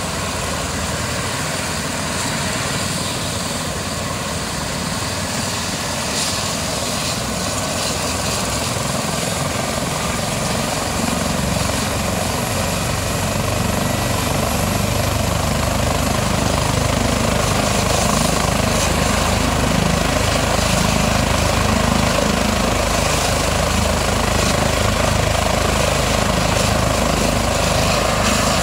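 Airbus (Eurocopter) H135 twin-turbine helicopter running on the ground during start-up. Its rotor is coming up to speed, and the sound grows louder and fuller from about halfway through.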